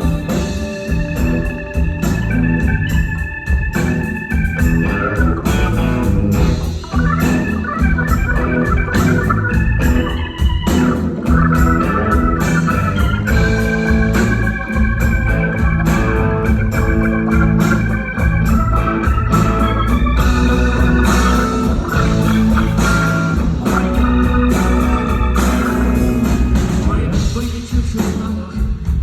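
Rock band playing an instrumental passage live, an organ holding and changing chords over bass and steady drum beats.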